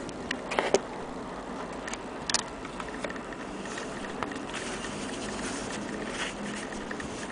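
Handling noise: a few sharp small clicks early on and a faint rustle of fabric being handled, over a steady background hiss.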